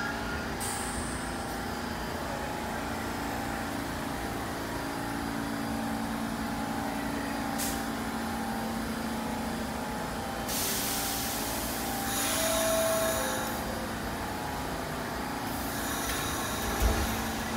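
R46 subway train standing at the station, running with a steady hum, broken by several hisses of compressed air from its air brakes. The longest and loudest hiss comes a little past halfway through.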